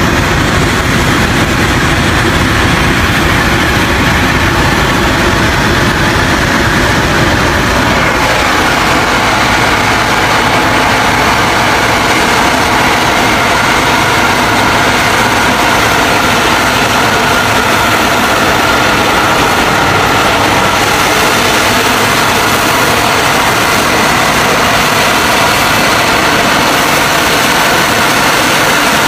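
Heavy truck engine running loud and steady. About eight seconds in the sound changes to the engine of a log-laden Ford Canadian Military Pattern truck working through mud, with a steady whine over it.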